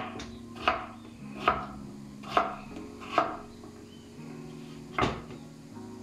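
Kitchen knife dicing a peeled potato on a wooden cutting board: about six sharp knocks of the blade against the board, roughly one a second, with a pause of nearly two seconds before the last. Faint background music runs underneath.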